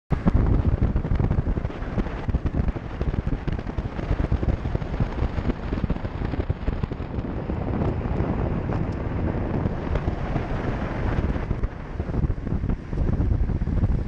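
Wind buffeting the microphone of a camera mounted low on the outside of a moving car, over the rumble of the tyres on the road. It is a loud, gusty rumble with no steady tone.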